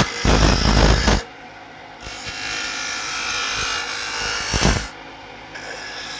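Turning gouge cutting into a spinning oak blank on a wood lathe while roughing it to shape. There is a loud, coarse cut for about the first second that stops suddenly, then a lighter, steadier cut from about two seconds in, easing off near the end.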